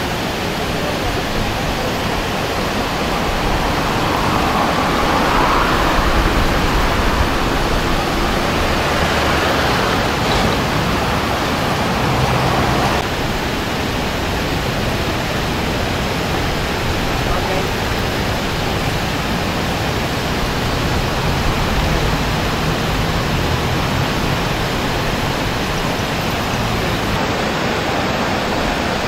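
Muddy floodwater pouring over a low diversion dam's weir and churning below it, a steady rushing noise: the river in flood overtopping the dam. The sound shifts a little about halfway through.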